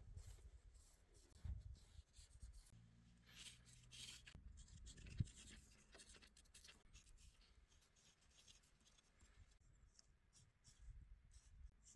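Near silence: faint ambient rumble with a few soft clicks, a faint low hum lasting about a second and a half about three seconds in, and a single sharp tick about five seconds in.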